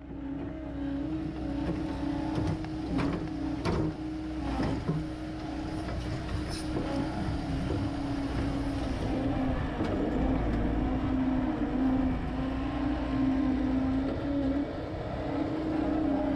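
Diesel engine of a compact machine running steadily under load, with a constant pitched drone and low rumble. A few sharp metallic knocks come between about three and five seconds in.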